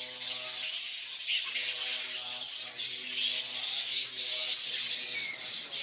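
A colony of roosting flying foxes squabbling, a steady raspy chatter of screechy calls rising and falling in small surges. Faint low held notes run underneath.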